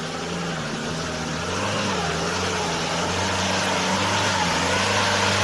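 Off-road vehicle's engine running steadily under way, with a low hum that wavers slightly and grows a little louder after about one and a half seconds.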